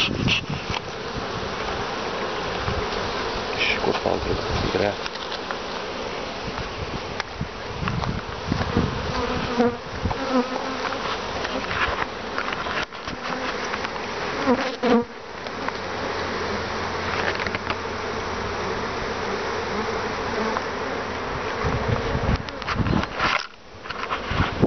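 Many honeybees buzzing around an opened hive, a dense steady hum, with single bees passing close by a few times in short rising and falling buzzes.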